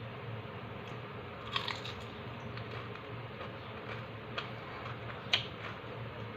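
Chewing crispy chicharon, with a few sharp crunches about one and a half, four and a half and five and a half seconds in, over a steady low hum.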